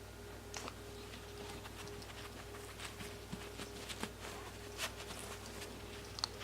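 Yorkshire terrier sniffing and nosing through a snuffle mat for hidden treats: scattered short sniffs and rustles over a faint steady hum.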